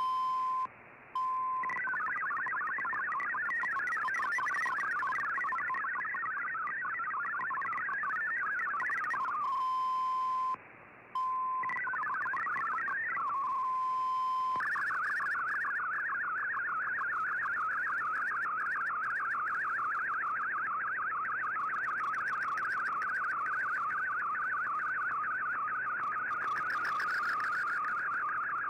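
Digital-mode data tones from a shortwave broadcast, heard through an Icom IC-R8600 receiver. A steady single tone is broken twice by short gaps and by bursts of rapidly hopping tones. From about fifteen seconds in comes a continuous, fast, regular warble, the sound of MFSK text or SSTV picture data being sent.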